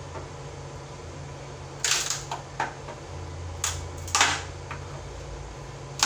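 Wood chisel struck with a hammer, chopping into a plywood drawer front to cut the recess for a drawer lock: several sharp knocks at uneven intervals, starting about two seconds in.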